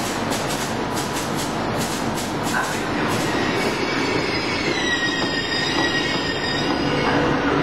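ALn 668 diesel railcar pulling away: engine running and wheels clicking in a quick rhythm over the rail joints. From about four seconds in comes a high wheel squeal lasting a few seconds.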